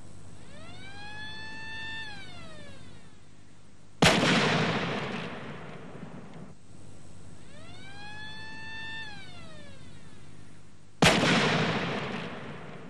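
Metal Storm electronically fired stacked-projectile gun firing a volley, twice: each volley is one sudden loud blast rather than separate shots, fading over about two seconds. Before each blast a tone rises, holds for about a second and falls away.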